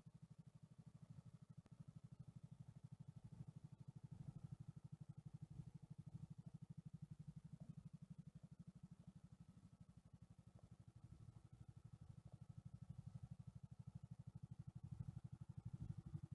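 TVS XL 100 moped's single-cylinder four-stroke engine idling: a faint, steady low pulsing that grows a little louder near the end.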